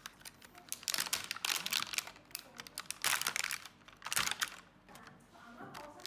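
Thin clear plastic egg carton being opened by hand: the clamshell crackles and clicks in several short bursts as the label strip is pulled and the lid is prised open.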